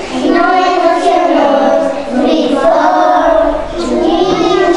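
A group of young children singing a song together, in sung phrases broken by short pauses about two seconds in and again near the end.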